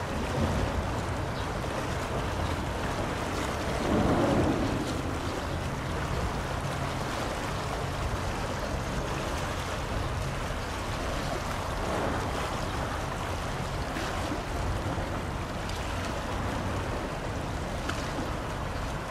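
A large bulk carrier passing under way: a steady low rumble with the wash of its bow wave, and wind on the microphone. A brief louder rush comes about four seconds in.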